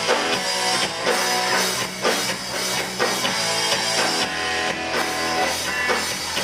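Rock band playing: guitar strummed over a steady drum-kit beat.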